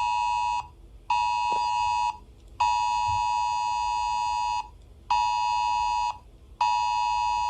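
Emergency-alert-style attention tone: a harsh, buzzing alarm tone sounded in five pulses with short gaps between them, the middle pulse about two seconds long and the others about a second or less. It starts abruptly out of silence.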